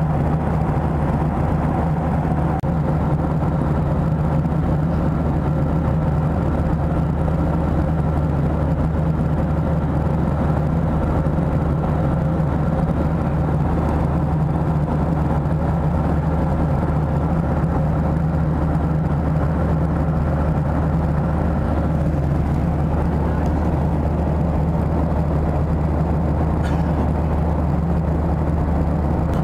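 Steady cabin roar of a Boeing 737-700 in flight, its CFM56-7B turbofan engines and the airflow over the fuselage heard from a window seat, with a steady low hum beneath.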